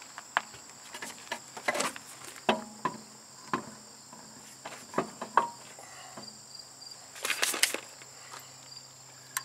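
Scattered clicks and knocks as a car wheel is worked onto its hub studs by hand and lug nuts are handled on gravel, with a denser clatter about seven seconds in. A steady high insect drone runs underneath.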